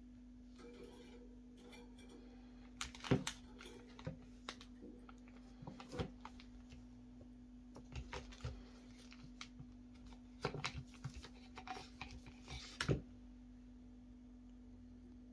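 Clear plastic bag crinkling and a tan molded knife sheath being handled, giving scattered clicks and rustles over a faint steady hum. A sharp click near the end comes as the Extrema Ratio Fulcrum C knife is drawn out of its sheath.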